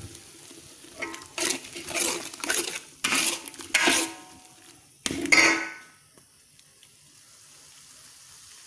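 Metal spatula scraping and clanking against a frying pan, stirring meatballs into the sauce: about half a dozen short strokes, stopping about six seconds in, with a faint sizzle underneath.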